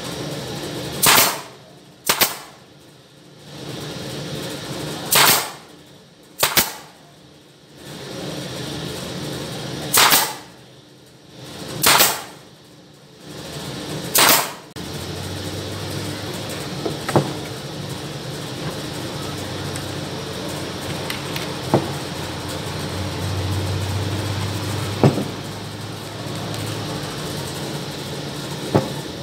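A series of sharp knocks, about seven in the first fifteen seconds, some coming in pairs about a second apart, as wooden lantern parts are worked. After that there is a steady low hum with a few light clicks.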